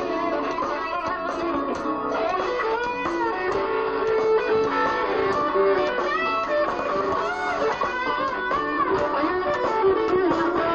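Live band music with an electric guitar playing a lead line of bent notes over the rhythm.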